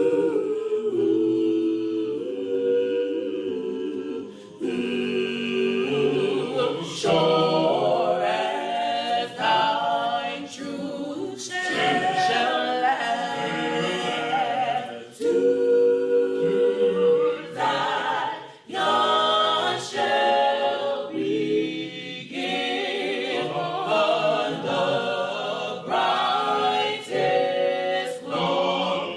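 A cappella gospel choir singing in several parts, unaccompanied, in phrases with brief breaks between them.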